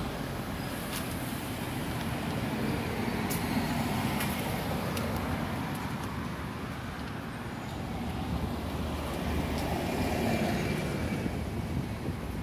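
Road traffic: buses and cars driving past, a steady rumble of engines and tyres that eases and then swells again.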